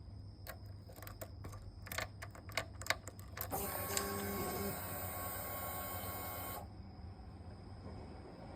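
Suzuki Gladius 400 fuel pump priming at key-on. A series of sharp clicks is followed by a steady whine of about three seconds that cuts off suddenly. The owner calls the whine a catching, leaking-like "wiin-jit-wiin" sound that the bike has only recently started making.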